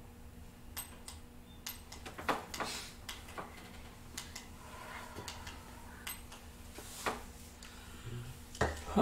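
Scattered light clicks and taps of handling at a wooden pulpit close to the microphone, over a faint steady hum.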